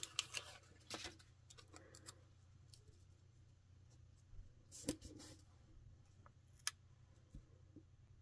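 Faint paper handling: a small paper tile sticker being taken from its sheet and peeled from its backing, with light rustles and sharp little clicks, several in the first second and louder single ones about five and nearly seven seconds in.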